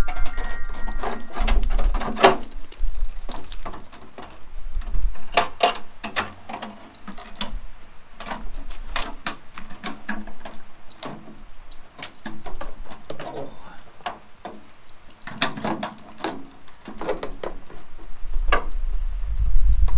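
Rainwater trickling and dripping at the foot of a house downspout, with irregular clicks and knocks as the downspout sections and a plastic leaf filter are handled and fitted together.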